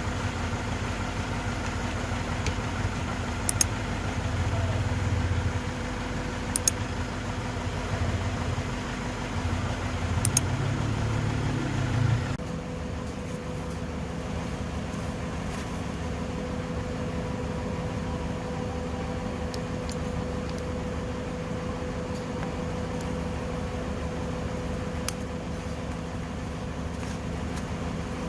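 An engine idling with a low rumble that swells a few times, with some sharp clicks, then cuts off abruptly about twelve seconds in, leaving a steady hum.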